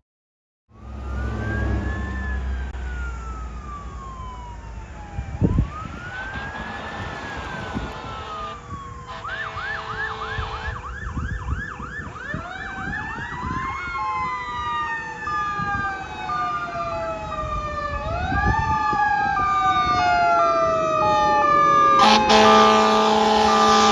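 Emergency sirens of a fire truck and an ambulance responding, wailing up and down in pitch, with a quick yelp about nine seconds in, several sirens overlapping and growing louder. A long air horn blast comes near the end.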